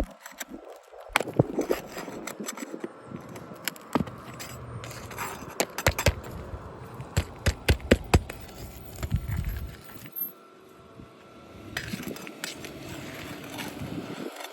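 Crowbar and hammer working on old 3-tab asphalt shingles to pull roofing nails: rough scraping with scattered sharp clinks and knocks, and a dense run of knocks in the middle.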